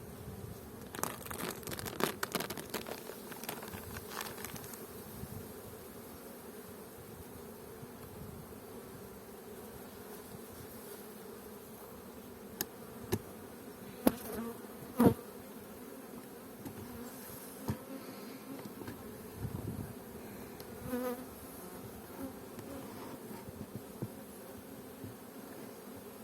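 Honeybees buzzing around an opened hive, a steady hum. Sharp clicks in the first few seconds and several knocks in the middle, the loudest about fifteen seconds in.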